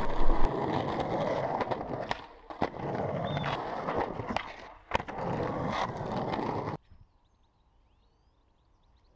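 Skateboard wheels rolling over rough concrete, with sharp clacks of the board striking the ground. The sound cuts off suddenly about seven seconds in, leaving near silence.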